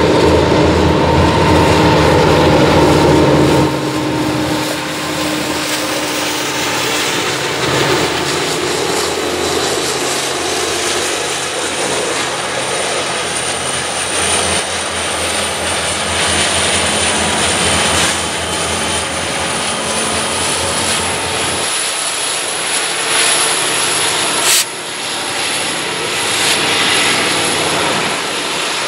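Union Pacific SD70M diesel locomotives, with EMD 710 two-stroke engines, running as they pass close by. Then a freight train's cars roll past, steel wheels rumbling and clattering on the rails. A thin high squeal slowly rises in pitch through the second half, and there is one sharp click a few seconds before the end.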